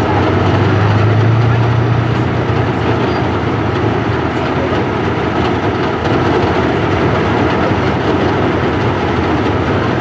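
WZT-2 armoured recovery vehicle's V-12 diesel engine running as the tracked vehicle crawls forward, with the rattle of its steel tracks. The engine's low drone is strongest in the first couple of seconds, then eases.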